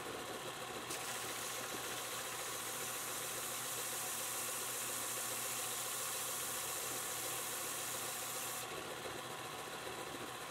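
Benchtop belt sander running steadily with a low motor hum. From about a second in until near the end, a louder hiss as wild turkey feathers held in a metal clamp are ground against the belt to cut fletchings to shape.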